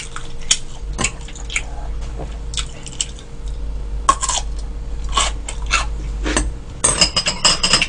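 Eating sounds: chewing, with chopsticks and a spoon clicking against bowls now and then, and a quick flurry of utensil clinks about seven seconds in.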